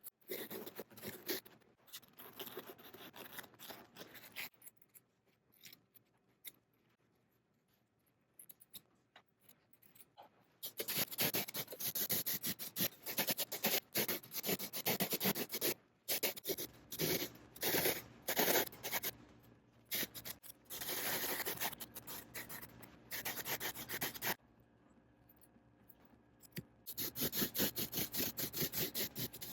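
Hand tools trimming and shaping a foam seat-cushion patch: scissors, a hacksaw blade and a cheese grater rasping and scraping the foam in runs of rapid strokes, with short pauses.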